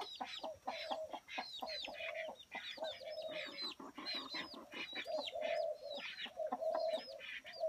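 A flock of backyard chickens clucking and calling without a break, with many short, high, falling chirps overlapping throughout.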